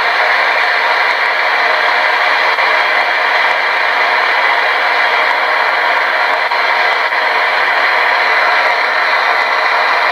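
Portable radio used as a spirit box, giving a steady, loud hiss of static while its dial is being tuned.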